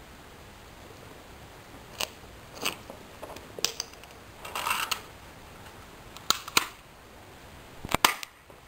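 Scattered short clicks and a brief rustle, close to the microphone, over a low steady hiss; no one speaks.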